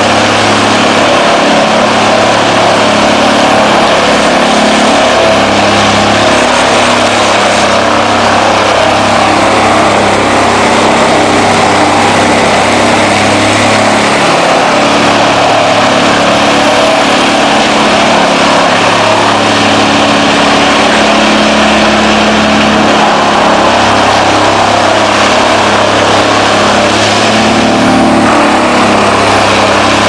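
Woodsman 337-FC 24-inch wood chipper running steadily and loud as whole trees are fed into it and chipped.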